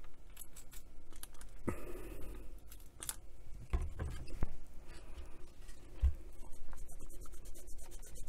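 Handling noise from a portable radio's case being moved on a desk: scattered clicks and rustles and a couple of dull knocks. From about seven seconds in, a cloth rubs in quick strokes over the case's black covering, wiping off freshly applied marker ink.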